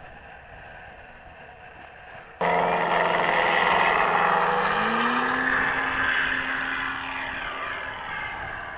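E-flite Carbon-Z Cub RC plane under power, its onboard engine-sound system and propeller coming in suddenly and loudly about two and a half seconds in as the throttle is pushed up to full. The engine note climbs in pitch a little later, then slowly fades as the plane moves away.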